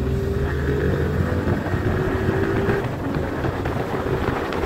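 Motorcycle engine running hard under acceleration, its note rising gently, with wind rushing over the onboard microphone.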